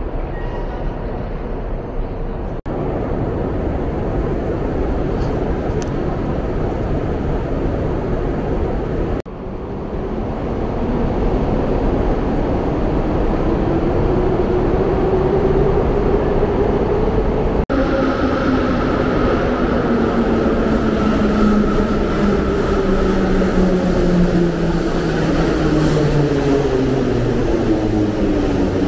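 Metro train's electric traction motors whining over a steady rumble: the whine rises in pitch as a train picks up speed, then, in a later stretch, falls steadily as a train brakes into the station.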